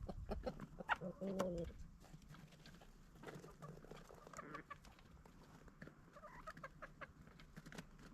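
Chickens clucking softly. There is a short, louder call about a second in, then quieter clucks, with light clicks scattered among them.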